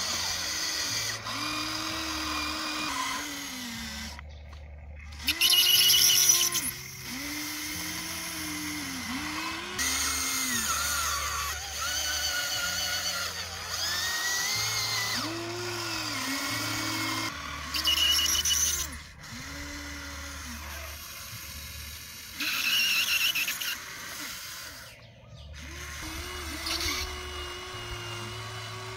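Small electric motors of a Huina remote-control toy excavator whining in short spurts as the boom, arm and bucket move, each spurt rising and then falling in pitch. Three louder, harsher bursts stand out, about six seconds in, near the middle and about two-thirds through.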